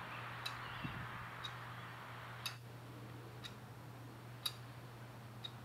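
Faint ticking, about one tick a second, over a steady low hum and hiss.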